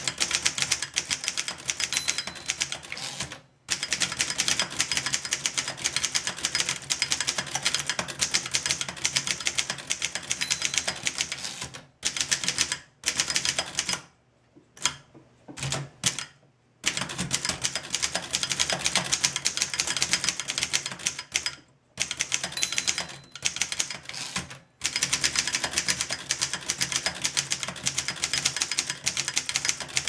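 1927 Corona No. 4 portable typewriter being typed on at speed: a fast, even run of key and typebar clacks, broken by a few short pauses. The machine is freshly serviced and typing cleanly.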